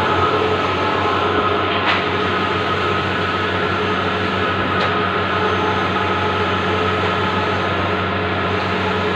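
Bluewin large-format outdoor banner printer running: a steady machine hum and whir, with a faint click about two seconds in and another near five seconds.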